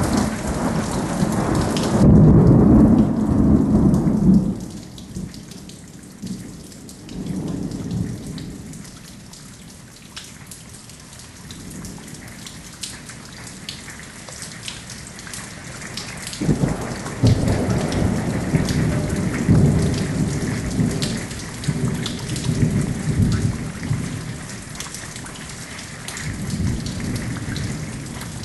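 Rolling thunder over steady rain, with raindrops ticking close by. A loud roll opens, a short one follows a few seconds later, and a longer run of rolls comes in the second half.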